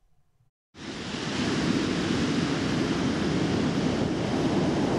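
Steady rush of surf on a beach mixed with wind on the microphone, starting about a second in after a moment of silence.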